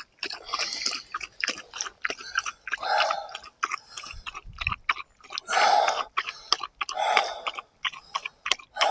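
English springer spaniel lapping water from a mug, a rapid run of wet laps and mouth clicks in spells with short pauses.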